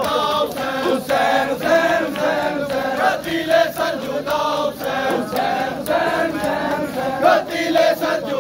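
A crowd of mourners chanting a nauha (Shia lament) together in unison, over sharp, regular beats about twice a second.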